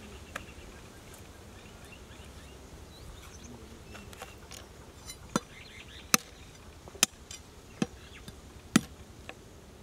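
A heavy cleaver chopping raw mutton shank bones on a wooden chopping block. There is one light chop near the start, then about five sharp chops roughly a second apart in the second half, over faint steady background noise.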